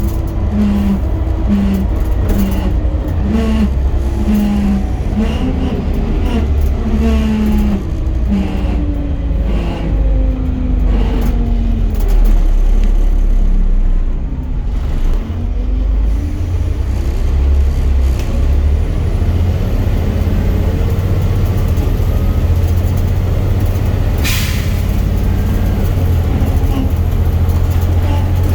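Volvo B7 bus running on the move, with a steady low engine rumble and an axle whine. The whine pulses on and off at first, then glides up and down in pitch; it is the weird axle noise the bus is known for. A short air-brake hiss comes near the end.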